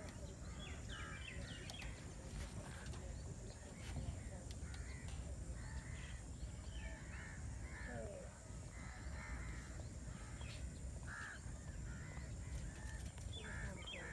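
Crows cawing again and again, short calls scattered throughout, over a low steady rumble.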